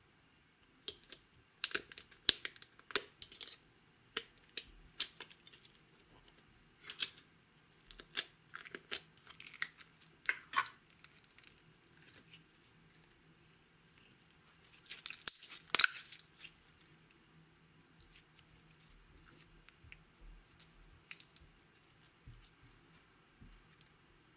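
Green glitter slime handled and stretched between the fingers: scattered sticky clicks and crackles, with the loudest burst of them about halfway through.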